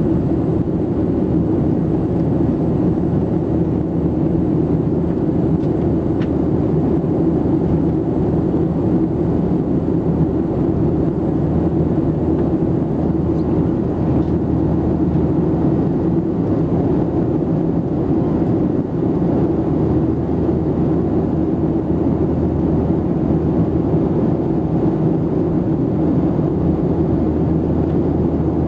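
Steady engine and airflow noise inside the passenger cabin of a Boeing 737-700 in flight, its CFM56-7B turbofans giving a constant drone with no change in pitch or level.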